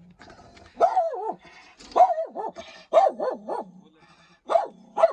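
A white dog behind a wire-mesh kennel door barking over and over in quick runs of two or three high barks. The first bark is drawn out and falls in pitch.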